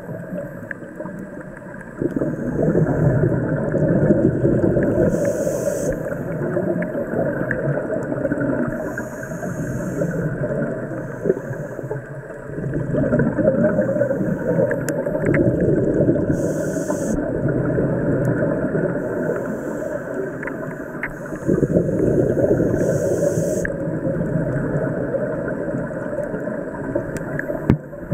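Scuba diver breathing through a regulator underwater: long surges of bubbling exhalation alternating with short hissing inhalations, repeating every several seconds.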